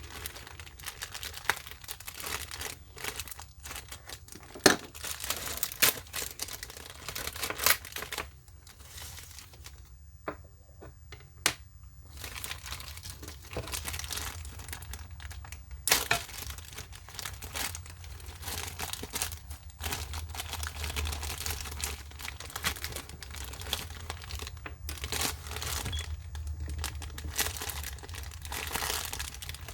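Packaging handled by hand, crinkling and rustling with many scattered sharp clicks and snaps, easing off for a few seconds about a third of the way in.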